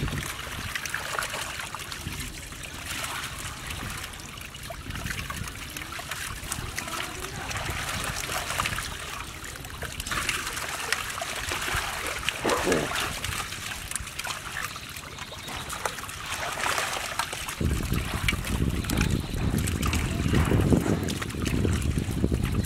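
Splashing and trickling water as a dense mass of stinging catfish thrashes in the shallow water of a drawn-up net and is scooped out with a plastic basket, a busy patter of small splashes. About three-quarters of the way through, a low rumble joins in.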